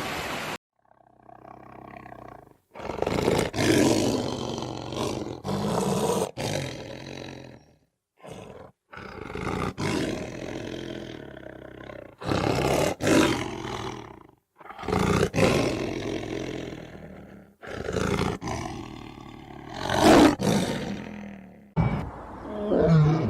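Lions roaring and growling: a series of loud, rough roars a second or two long, with several abrupt breaks where separate recordings are cut together.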